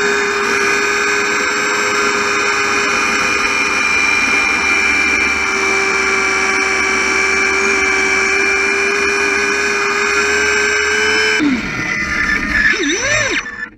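Brushless motor of a radio-controlled zipwire camera buggy whining at a steady pitch as it drives the buggy up the wire, heard close up from the camera on board. Near the end the steady whine stops and a rougher sound with quick rising and falling swoops takes over.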